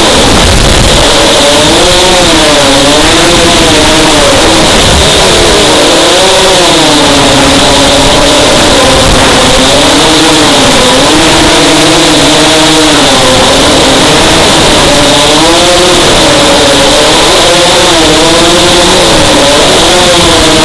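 FPV racing quadcopter's motors and propellers whining in flight, the pitch rising and falling continually with the throttle, over a steady hiss.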